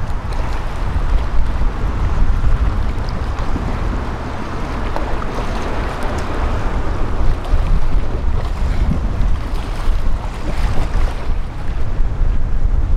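Wind buffeting the microphone over a steady wash of water, with a strong, uneven low rumble throughout.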